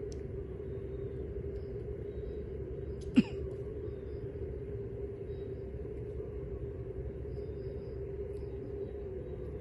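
Steady low outdoor rumble with a constant hum, and about three seconds in a single short, sharp call that drops in pitch, from a long-tailed macaque.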